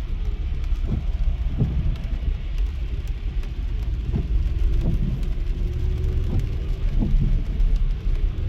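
Car driving on a rain-soaked road: a steady low rumble of engine and tyres, with rain noise over it and a scatter of short thumps and light ticks.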